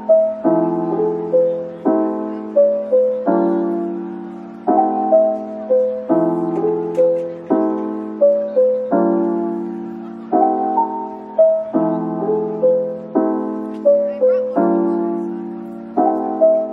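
Background piano music: a slow, repeating pattern with a new chord about every second and a half and a few melody notes over each.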